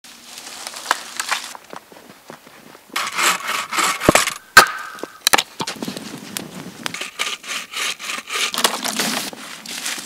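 Dry wood being broken and handled: sharp cracks of branches snapping, the loudest about halfway through, between stretches of rubbing and scraping wood.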